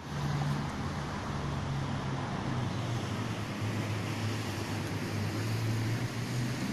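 Steady low engine-like hum over a constant wash of outdoor background noise.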